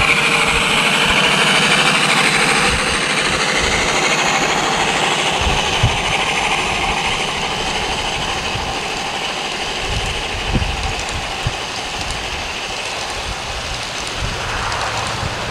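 A large-scale model train running past: BNSF diesel locomotives pulling a string of tank cars, with a steady mechanical rumble that is loudest as the locomotives go by and eases off as the tank cars follow.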